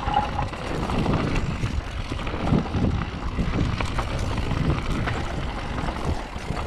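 Mountain bike being ridden on a dirt trail: wind rumbling on the microphone, with tyre noise and frequent small knocks and rattles from the bike over rough ground.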